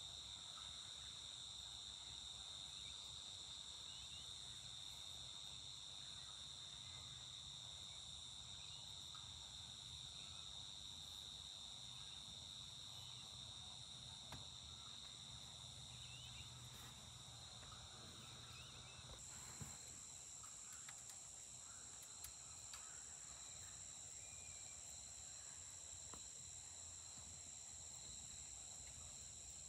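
Faint, steady chorus of crickets or similar insects trilling at several high pitches at once. About two-thirds of the way through, the lowest trill fades and a higher one grows louder. A few faint short chirps sound now and then.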